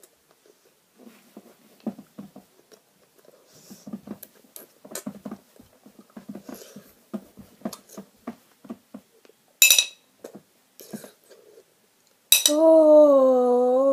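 A boy with an extremely sour Warheads candy in his mouth: small clinks and knocks of a plate being handled along with mouth noises, a brief high squeak near ten seconds in, then a loud, long, wavering wail near the end as the sourness hits.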